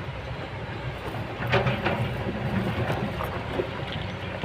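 Kobelco hydraulic excavator's diesel engine running steadily, with irregular sharp clanks and knocks over it, the loudest about a second and a half in.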